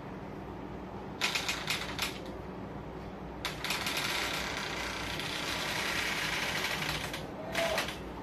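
Hands rubbing and pressing on skin and fabric during a belly massage. The sound is a scratchy rubbing: a few short bursts about a second in, then steadier continuous rubbing from about three and a half seconds, with more bursts near the end.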